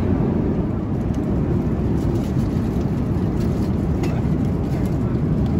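Steady cabin noise of a Boeing 787-10 airliner in cruise: a constant low rumble of engines and airflow, with a few faint clicks about halfway through.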